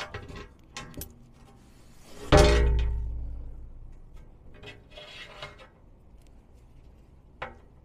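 Aluminum skid plate being shifted into place under the vehicle, with light clicks and scrapes, then one loud metallic clank about two seconds in that rings on and fades over a second or so.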